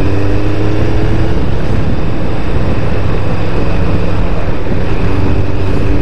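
Kawasaki Ninja ZX-7R's inline-four engine running steadily under way, heard from the riding position over a constant rushing noise. Its note shifts slightly after about a second and a half and again near the end.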